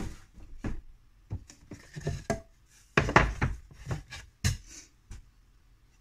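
Unfinished wooden beehive boards knocking and scraping against each other and the cardboard box as they are handled and lifted out: a run of irregular knocks and rubs, with a sharp knock right at the start and the loudest knocks about halfway through.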